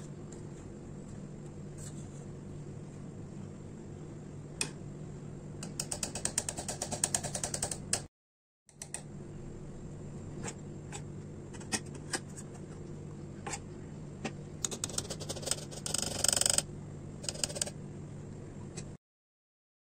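Metal fork and spoon clinking and scraping against a steel bowl of melted chocolate, with scattered taps and two runs of quick light taps, over a steady low hum.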